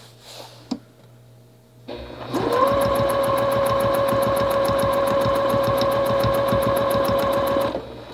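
Juki 2010 sewing machine stitching along a curved quilting ruler with a ruler foot: it starts about two seconds in, quickly comes up to speed and runs at a steady, fast, even stitch rhythm over a steady motor hum, then stops shortly before the end.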